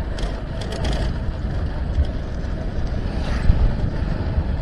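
Motorcycle running at a steady cruise along a rough road, its engine and the road and wind noise making a continuous low rumble, with a few faint ticks about a second in.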